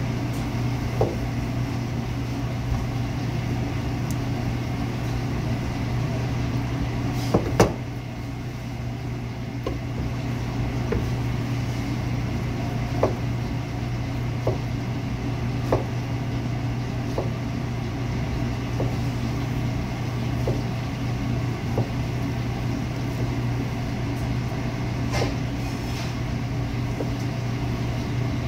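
Steady low hum of commercial kitchen equipment, with a knife knocking on a plastic cutting board about every second and a half as a pork loin is sliced; two sharper knocks come close together a little over seven seconds in.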